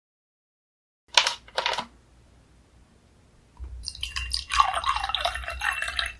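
Two short sharp sounds about a second in, then liquor pouring and splashing into a glass, with a bubbling gurgle, from about three and a half seconds on.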